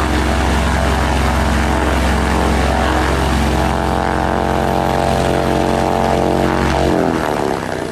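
Piston engine of a light propeller plane running loud and steady close by. Its pitch drops and the sound begins to fade near the end.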